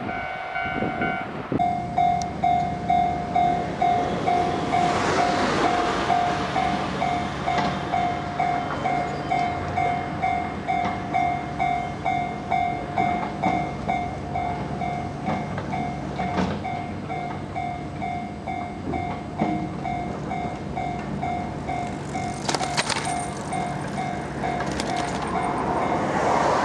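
Japanese level-crossing warning bell ringing, a single clanging tone repeating about twice a second, starting about a second and a half in, while a train runs past on the rails.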